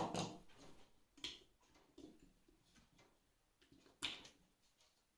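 Handling clicks and knocks from a plastic electronic fishing bite alarm being worked by hand, a few sharp clicks with the strongest at the start and about four seconds in.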